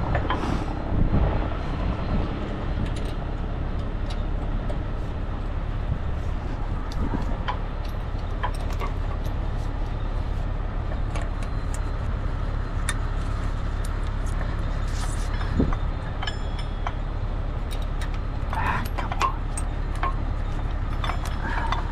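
Heavy diesel tow truck engine idling steadily, with scattered light clinks of a steel tow chain being handled.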